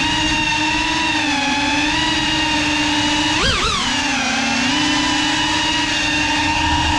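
Ducted propellers and brushless motors of a GEPRC CineLog35 cinewhoop whining steadily in flight. About three and a half seconds in, the pitch briefly rises and falls.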